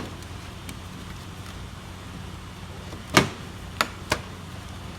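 Sharp plastic clicks and knocks from a plastic engine-bay cover being worked loose by hand: one loud snap about three seconds in, then two lighter clicks within the next second, over a steady low hum.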